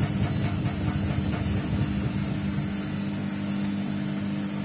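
Samsung WF604 front-loading washing machine spinning down at the end of its final spin: the motor hums steadily over a fast rattle from the shaking cabinet, and the rattle eases off about three seconds in.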